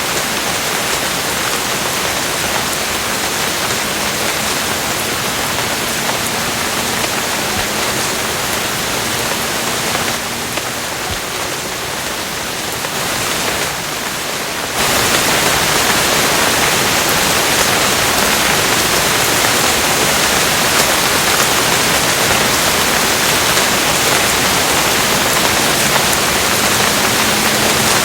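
Steady heavy rain, a dense even hiss. It turns slightly quieter about a third of the way in, then abruptly gets louder about halfway through.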